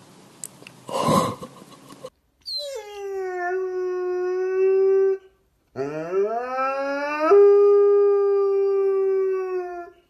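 Bernese mountain dog howling twice in long, drawn-out howls. The first starts high, falls and then holds steady; the second rises from low and is held for several seconds. Before the howls, about a second in, there is a brief noisy burst.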